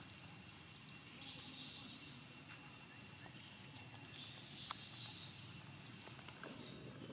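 Faint outdoor ambience with a steady high hum, and a single sharp tick about two-thirds of the way in.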